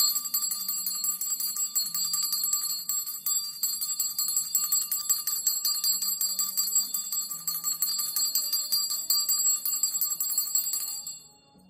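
Small brass hand bell shaken continuously, its clapper striking rapidly to keep a bright, high ring going; the ringing stops abruptly near the end.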